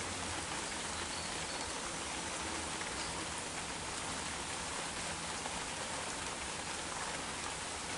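Heavy rain shower falling steadily, a dense even patter of drops with no thunder.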